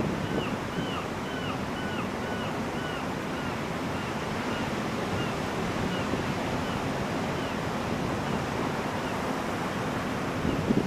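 Ocean surf breaking and washing up a sandy beach in a steady rush. A bird gives quick, short repeated calls during the first few seconds, thinning out after, and wind buffets the microphone near the end.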